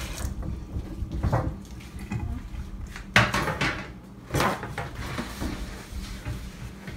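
A thin metal baking sheet being handled on a countertop: a few sharp clattering knocks as it is set down and moved, then quieter rubbing as it is wiped with a paper towel.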